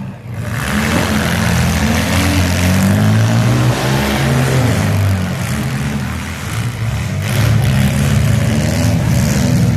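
Demolition derby car engines revving and running together, their pitch rising and falling over a steady noisy din.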